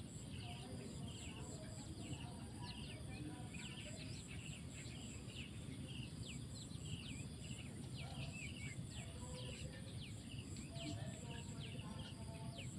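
Small birds giving many short chirps and quick sweeping calls, over an evenly pulsing high buzz and a low, steady rumble.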